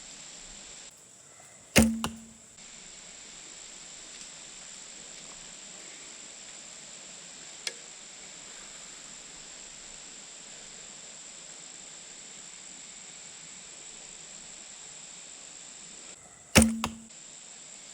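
Traditional longbow, a 62-inch 48-pound Black Widow PL, shot twice about 15 seconds apart. Each shot is a sharp snap of the string with a brief low hum, followed a moment later by the arrow striking the target.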